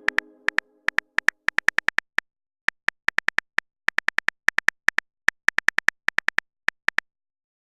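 Rapid, irregular string of short electronic beeps, one per typed character: the typing sound effect of a texting-story chat app. The beeps come in quick runs with brief pauses between them, over the fading tail of a short musical chord at the start.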